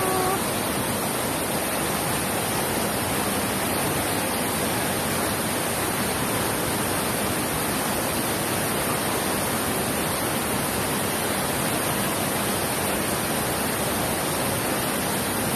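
Steady, even rushing noise, with no distinct calls, knocks or other events standing out from it.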